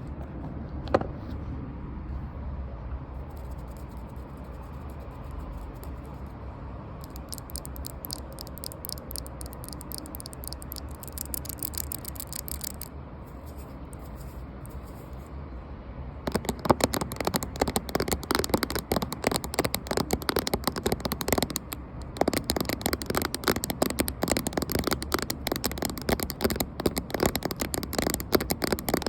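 Fast finger tapping on a camera, close to the microphone: a single click about a second in, then light, rapid ticking, turning dense and louder about halfway through, with a brief pause shortly after.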